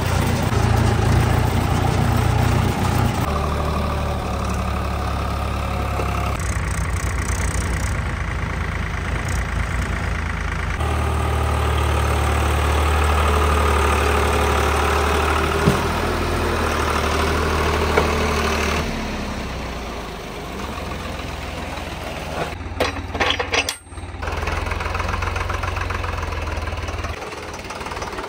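Diesel engines of tractors and earth-moving machinery running at idle and under load, the engine sound changing abruptly several times. Near the end there is a short cluster of sharp clicks and a brief dropout.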